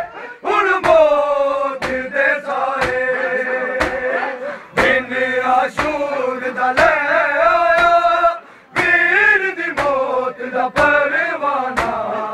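Male voices chanting a Punjabi noha in long, held lines, with matam, the rhythmic chest-beating of mourners, striking sharply about once a second in time with the chant.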